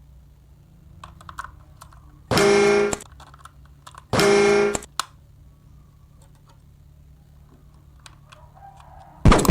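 Toy's electronic horn sounding twice, two steady pitched toots of under a second each, amid light clicking of plastic toys being handled; a short loud sound near the end.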